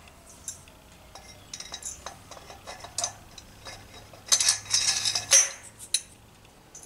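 Metal parts of a Motobecane AV7 moped engine clinking and scraping as the cylinder is slid by hand over the crankcase studs. Scattered light clicks build to a louder run of clinks and scraping about four to five and a half seconds in.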